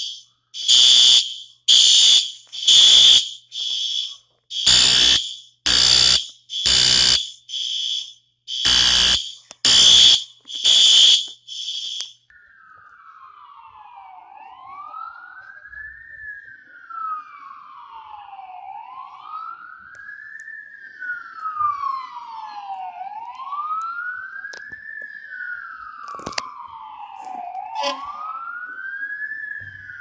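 Building fire alarm horns sounding in the temporal-three pattern: three loud blasts about a second apart, then a pause, repeated three times, cutting off abruptly about twelve seconds in. After that an emergency-vehicle siren wails, rising and falling slowly about once every four seconds, with a second, fainter siren behind it.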